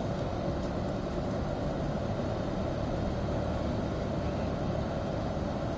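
Steady running noise of a moving vehicle, a continuous low rumble with no breaks.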